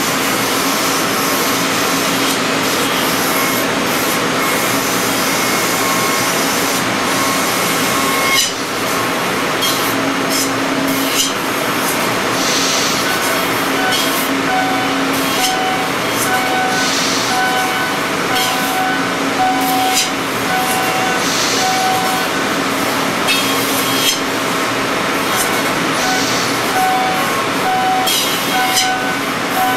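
C.R. Onsrud F98HM25 CNC hybrid mill cutting Ren tooling foam: a steady, loud hiss of spindle and cutting noise with whining tones that shift as the tool moves, and scattered clicks. A pulsing whine joins about fifteen seconds in.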